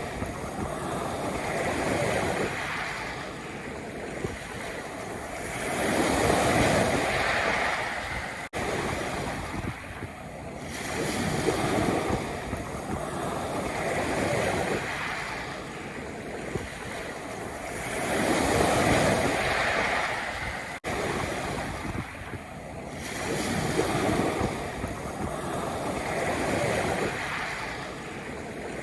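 Sea waves breaking and washing over a pebble beach, the surf swelling and falling back every few seconds. Twice the sound cuts out for an instant.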